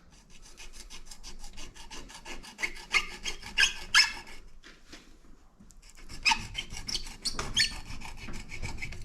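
Duct tape crackling and ripping as it is pulled off the roll and wrapped around the nail gun's cylinder to make a seal. It comes as a rapid run of crackles, loudest about three seconds in and again from about six seconds to near the end.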